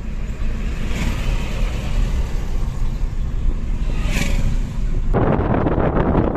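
Steady low road and engine rumble inside a moving vehicle's cabin. About five seconds in it cuts abruptly to loud wind buffeting the microphone.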